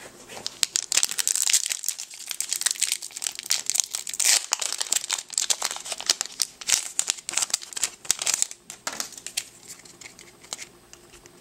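Foil wrapper of a Yu-Gi-Oh booster pack crinkling loudly as it is handled and torn open, thinning to fainter rustles near the end.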